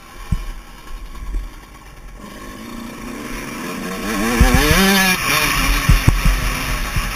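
Yamaha YZ125 two-stroke single-cylinder motocross engine under way: fairly quiet off the throttle for the first couple of seconds, then opened up about halfway through, its pitch climbing steeply as it revs and then holding loud. A few low thumps from the ride break through.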